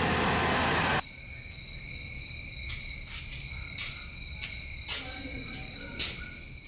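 A loud rushing noise cuts off about a second in, giving way to a steady chorus of crickets or other night insects, a high even trilling with fast chirps above it, broken by a few sharp clicks.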